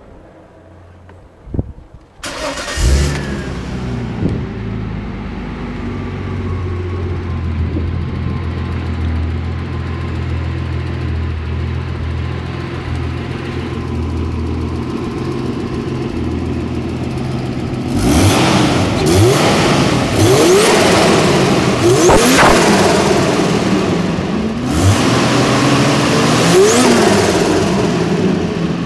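Holden VL Turbo's turbocharged 3.0-litre straight-six (RB30ET) cranking and catching about two seconds in, then idling steadily. From about 18 s it is blipped through several sharp revs, with the turbo fluttering each time the throttle snaps shut.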